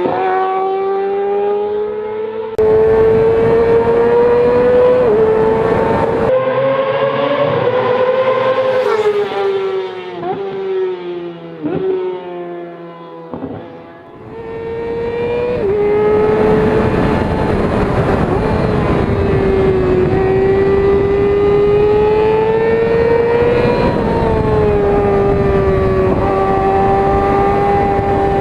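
Yamaha R6 inline-four engine running at high revs, its high-pitched note climbing slowly and dropping sharply several times as it shifts gears. It fades briefly about halfway through, then comes back and holds a high, fairly steady pitch.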